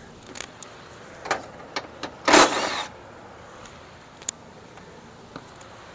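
A few light clicks and knocks of tool work, then about two and a half seconds in a brief half-second whir of a small power tool's motor, with a single click a little past four seconds.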